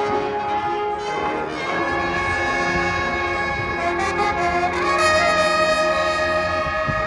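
High school marching band brass playing held chords. The chord shifts about two seconds in, then again to a slightly louder chord about five seconds in.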